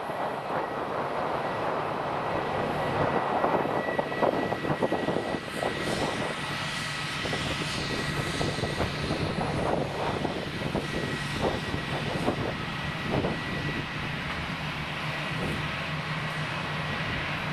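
Jet aircraft noise across an airport apron: a steady high whine over a low hum, with rough irregular fluttering noise on top.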